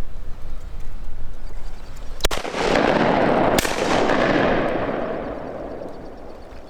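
Two shotgun shots about a second and a half apart at ducks. After the second shot comes a loud rushing wash of noise that fades away over about three seconds.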